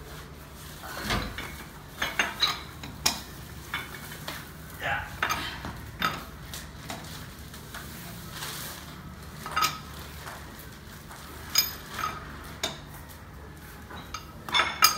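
Irregular metallic clinks and knocks of lug nuts and a lug wrench as a wheel is fitted back onto the hub and its nuts are run on and snugged.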